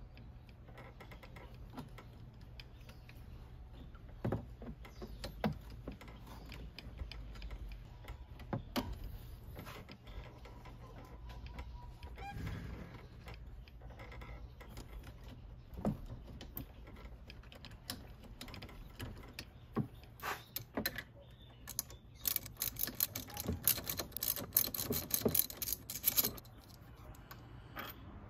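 Socket wrench working a 14 mm pinch bolt on a scooter's front fork clamp as it is loosened: scattered metallic clicks and knocks, then a fast run of ratchet clicks near the end as the bolt is spun out.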